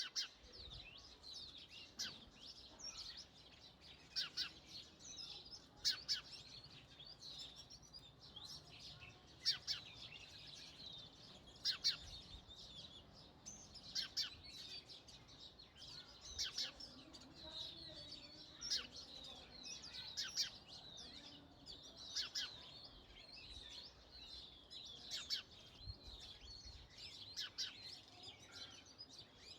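House sparrows chirping, a continuous chatter of short, rapid chirps, with brief louder calls every second or two.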